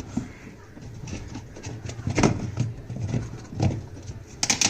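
Irregular knocks and scraping as a washing machine gearbox pulley wheel, held by a rusted-in screw, is forced and broken loose by hand with tools.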